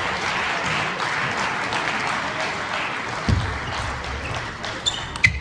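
Crowd applauding in an arena, the clapping thinning out over several seconds. A low thump comes a little past halfway, and a few sharp clicks of a table tennis ball come near the end.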